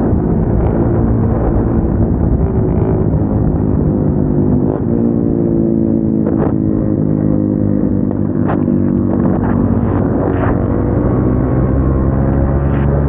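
Single-cylinder motorcycle engine with an aftermarket exhaust running at steady cruising revs while riding, its pitch drifting slowly, with a few brief sharp clicks.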